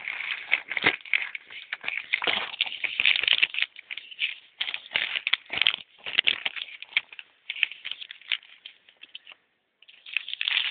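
Irregular crackling, clicking and rubbing from a plastic solderless breadboard being handled and turned over right at the microphone. It breaks off briefly near the end.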